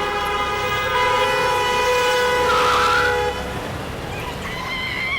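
A vehicle horn sounding one long, steady blast of several tones at once, which cuts off after about three seconds.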